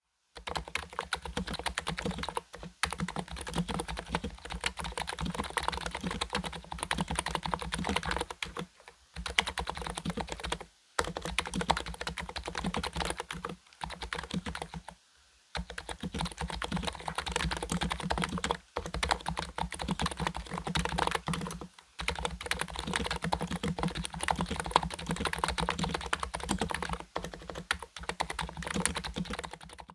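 Fast, continuous typing on a COX Endeavour keyboard with 35 g electro-capacitive (Topre-style) switches, fully lubricated and dampened with Thinsulate, under Cherry-profile keycaps. Rapid keystrokes run with several short pauses, the longest about halfway through.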